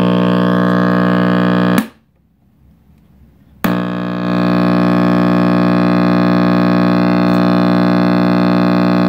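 RCA Victor X551 tube radio's speaker putting out a loud, steady mains hum with many overtones. It cuts out suddenly about two seconds in and comes back a second and a half later. The hum is the trouble the owner suspects a faulty filter capacitor of causing: the last one he soldered in.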